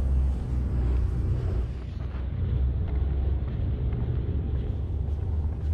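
Outdoor street ambience dominated by a steady, heavy low rumble of wind buffeting the camera's built-in microphone, with road traffic behind it.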